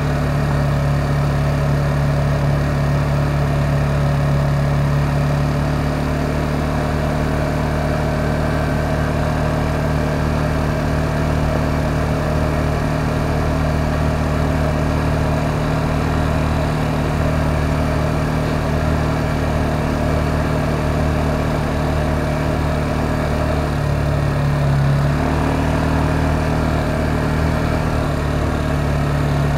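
K-Lion Commander 200 ATV engine running at a steady cruising speed. The engine note rises a little about twenty-five seconds in.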